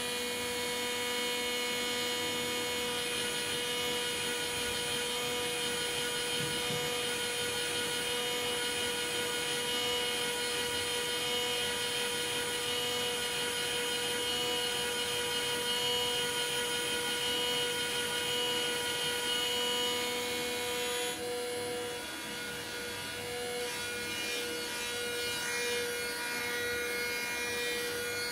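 Steady whine of CNC milling machinery running in a metalworking shop, several held tones over a hiss; the higher tones shift about three quarters of the way through.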